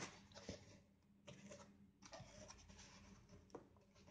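Faint rustling and scraping of a cardboard box's flaps and the plastic wrapping of the package inside as hands handle them, with a couple of light taps.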